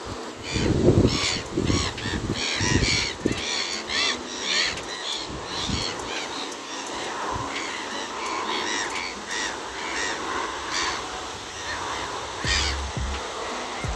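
Birds calling over and over in a busy chorus of short, harsh, arched calls, a few each second. A few heavy low thumps come in the first three seconds.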